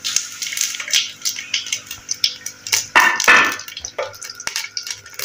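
Whole spices (cumin seeds, bay leaf and cinnamon) sizzling in hot ghee in a large aluminium pot. A spoon stirs them, clicking and scraping against the pot, loudest about three seconds in.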